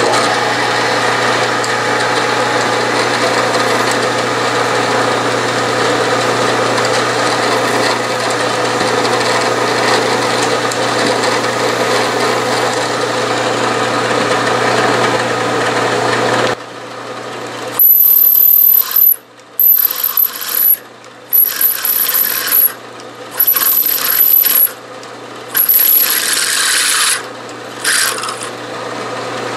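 Bridgeport milling machine's spindle running steadily while a drill bit cuts into a steel disc. After a cut about halfway through, the larger drill bites in repeated pecks of about a second each, loud and with a thin very high whine.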